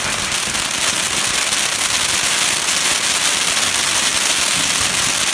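Ground fountain firework spraying sparks: a loud, steady hiss with dense crackling.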